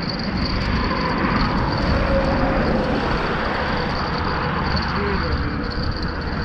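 Steady road traffic noise from vehicles crossing the bridge, an even rush with no single passing car standing out. Wind rumbles on the microphone.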